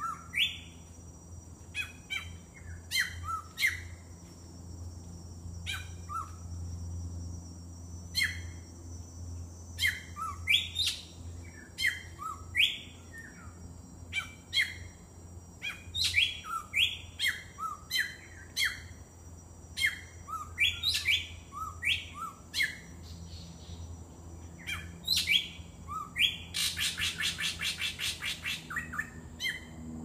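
A drongo calling over and over: a varied string of short notes and sharp clicks, many of them quick upward or downward sweeps. Near the end comes a fast rattling run of about seven notes a second, lasting about three seconds.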